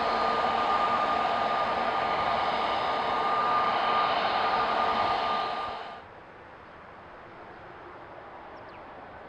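Twin-engine jet airliner landing: steady jet noise with a high fan whine as it flares and touches down. About six seconds in the sound drops away abruptly to a much quieter, distant jet rumble from an Airbus A320 on the runway beginning its takeoff run.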